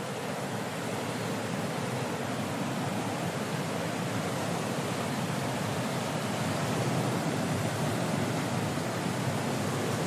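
Ocean surf breaking on a rocky shore: a continuous wash of waves with no single crash standing out, growing a little louder about two-thirds of the way through.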